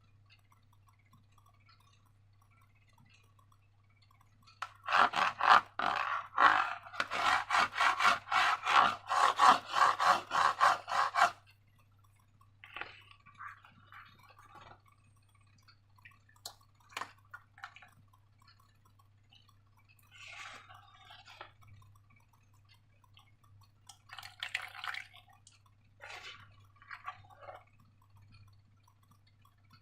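Slime being squished and worked by hand: a few seconds in, about six seconds of rapid wet, sticky clicking, then scattered softer squelches.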